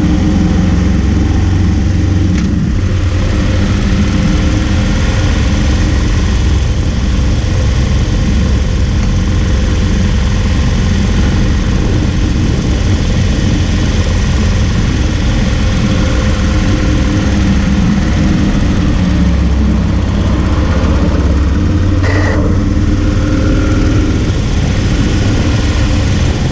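Harley-Davidson Road King's V-twin engine running steadily while the motorcycle rides along, with wind and tyre noise picked up by a camera mounted low by the front wheel.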